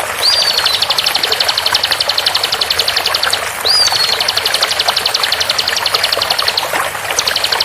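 Bar-winged prinia (ciblek) giving its rapid 'tembakan' song. Twice a short swooping note leads into a fast run of identical high notes lasting about three seconds, and shorter runs follow near the end. A steady rush of flowing water runs underneath.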